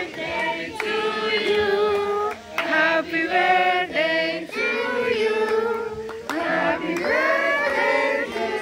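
A group of adults and children singing a birthday song together, several voices holding sung notes.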